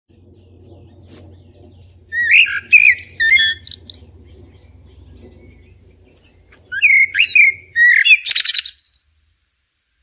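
Common (Eurasian) blackbird singing two fluted, whistled song phrases, the second ending in a high, squeaky twitter. A faint low hum lies underneath, and the sound cuts off abruptly about nine seconds in.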